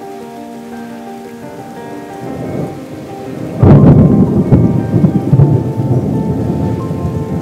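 A sudden clap of thunder about halfway through, breaking into a long, rolling rumble, over a steady hiss of rain. Soft background music with held notes is heard in the first half.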